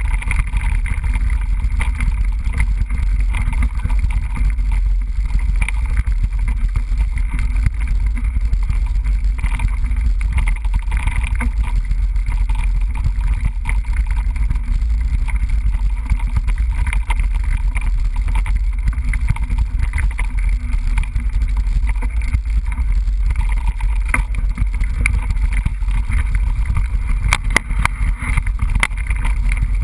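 Steady, loud wind and rolling rumble of a mountain bike being ridden on a trail, heard through a GoPro's microphone, with scattered short rattles and knocks from the bike, several of them close together near the end.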